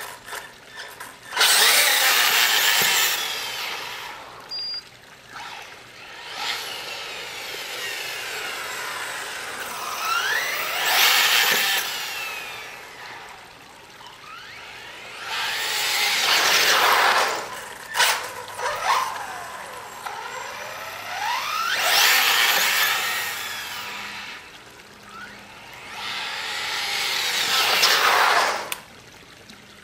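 Hyper 9e 1/8-scale electric RC buggy's drivetrain and electric motor whining up and down in pitch in about five bursts as it speeds up and slows. The owner hears a weird noise in it and does not know its cause.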